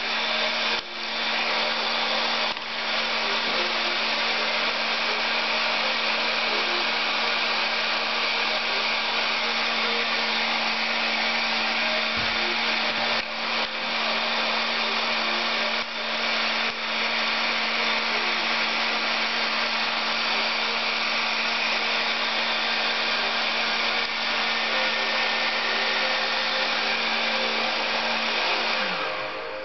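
Electric heat gun with a wide flat nozzle, mounted in a homemade edge-banding rig, blowing hot air steadily with a constant motor hum. Near the end it is switched off and winds down, the hum falling in pitch.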